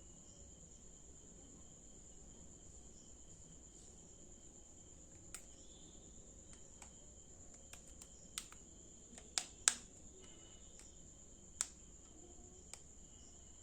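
Steady high-pitched trilling of crickets, with a scattering of sharp clicks and taps; the loudest two clicks come close together about nine and a half seconds in.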